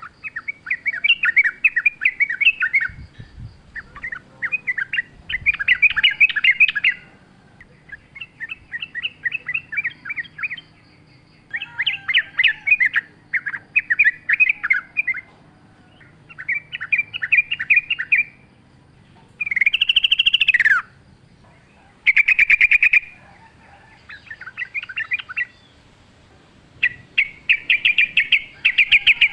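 Yellow-vented bulbul singing: repeated bubbling, chattering phrases of a second or two each, separated by short pauses, one ending in a falling slur about two-thirds through.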